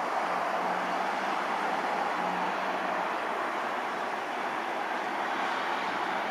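Steady, even roar of a jet airliner's engines at takeoff power, heard from afar, with a faint low hum underneath.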